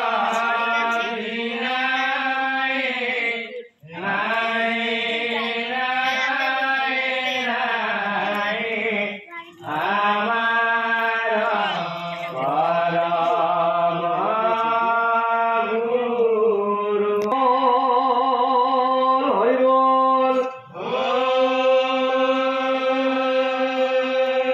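Male voices chanting an Assamese Nagara Naam devotional song in long, drawn-out phrases, with a short breath pause between phrases every few seconds. The chanting is unaccompanied, with no drum or cymbal strikes.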